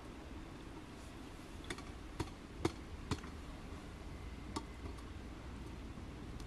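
A few light clicks and knocks, about five spread over the first few seconds, as a glass teapot is set on and shifted about the metal top of a samovar, over a steady low background noise.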